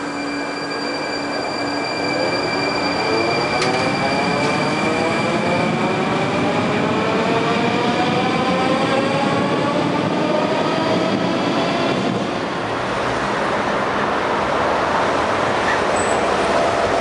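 Moscow Metro train pulling out of a station: its traction motors whine, the pitch rising smoothly as it gathers speed. About twelve seconds in the sound changes abruptly to the steady rushing noise of a tram running along its track.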